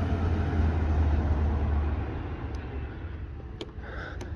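Police cruiser's engine running close by, a steady low hum that fades about two seconds in. A couple of faint clicks near the end.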